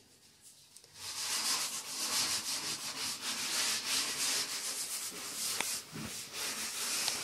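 Scouring sponge with detergent scrubbing a wooden cutting board: a rough rubbing hiss in quick back-and-forth strokes, starting about a second in.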